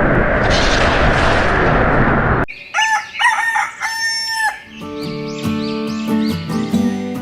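A loud, steady rushing noise that cuts off abruptly about two and a half seconds in, followed by a rooster crowing, then a few seconds of steady pitched notes.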